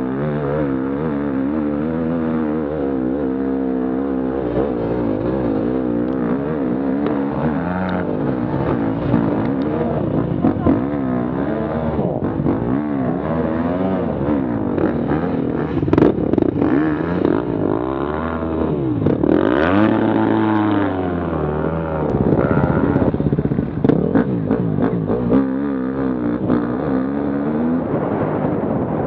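Enduro motorcycle engines heard close up from the bike, revving up and down over and over, the pitch rising and falling every second or so. A sharp knock about 16 seconds in, and a longer rising rev around 20 seconds.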